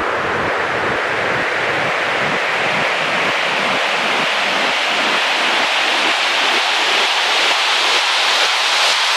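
Loud, even rushing noise like wind or surf that slowly rises in pitch and grows a little louder, with a faint low pulsing underneath that fades away.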